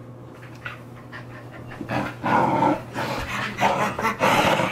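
Two blue heeler–mini American Eskimo mix dogs, a puppy and an older dog, play-fighting, with panting and growl-like noises that turn loud and rough about two seconds in.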